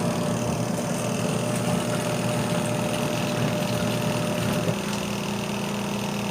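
Auertech portable twin-tub washing machine running, a steady motor hum with a thin whine above it that shifts slightly near the end.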